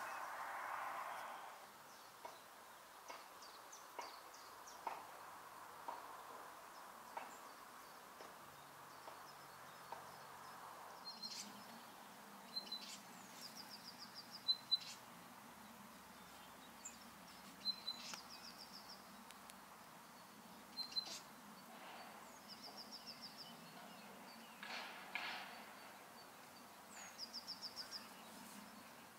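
Small songbirds calling faintly: short high chirps and, three times in the second half, a brief rapid high trill. Occasional sharp clicks and taps come in between.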